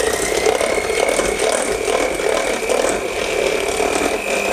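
Electric hand mixer with wire beaters whisking egg yolks and sugar in a stainless steel bowl, the motor running steadily with a high whine that rises slightly in pitch.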